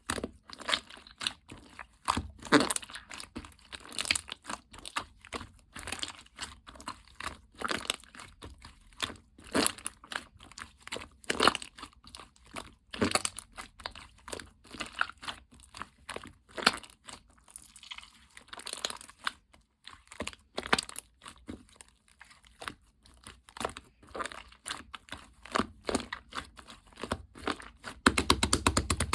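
Slime being squeezed, pressed and slapped by hand, giving an irregular run of sticky crackling and popping clicks, with a louder burst of handling noise near the end.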